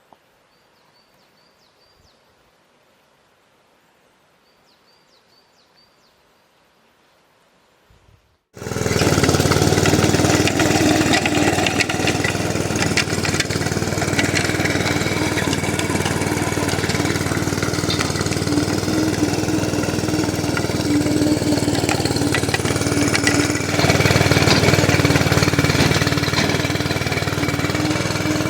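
A small engine running steadily with a constant hum and rattle, starting abruptly about eight seconds in after a near-quiet stretch with a few faint high chirps.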